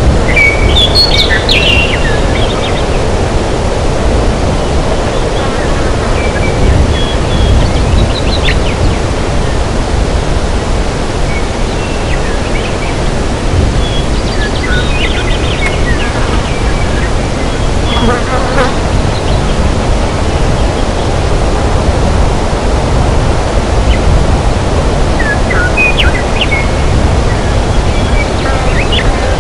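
Forest ambience: a loud, steady rushing noise with scattered short bird chirps and trills, in little clusters every few seconds.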